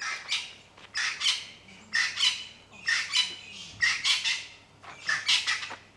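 A francolin calling: a series of loud, harsh, grating double-note calls repeated about once a second.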